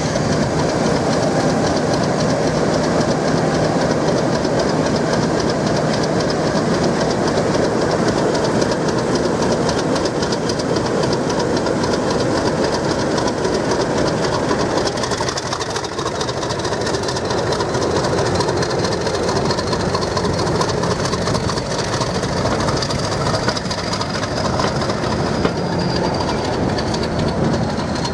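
Class 50 diesel locomotive's English Electric V16 engine working as it hauls a train of coaches past, with the coach wheels clicking steadily over the rail joints. The engine sound falls back about halfway through, leaving mostly the rattle and clatter of the passing coaches.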